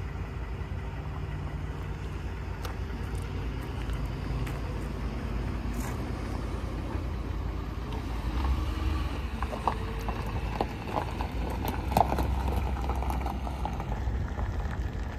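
Ford F-150 pickup engine running at idle, a steady low hum that swells a little in the second half. Crunching steps on gravel sound through it.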